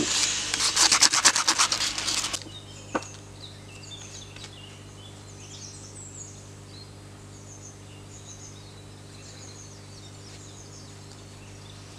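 Brisk, rapid hand-sanding strokes of P120 sandpaper on the steel head of a Cold Steel Trail Hawk tomahawk, rubbing off its paint, stopping abruptly about two and a half seconds in. After that only faint bird chirps and a low steady hum remain.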